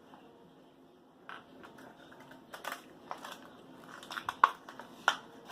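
Plastic toy packaging being handled and opened. After a quiet first second come a run of sharp crackles and clicks, loudest near the end.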